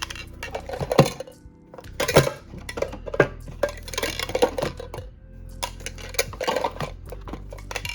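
Small metal mini tins clinking and clattering as they are handled and knocked against each other, in irregular sharp knocks, the loudest about a second in.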